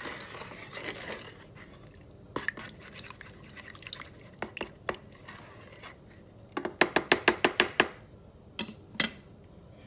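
Small wooden spatula stirring seasoned water in a lightweight camping-cookware pot, with soft sloshing and scattered scrapes and knocks against the pot. About two thirds of the way in comes a quick run of about ten sharp knocks, then two more just before the end.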